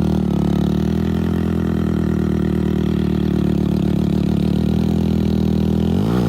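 Heavy vehicle's diesel engine running hard at steady revs under load as it climbs a steep dirt mound, with the engine pitch dipping and rising again near the end.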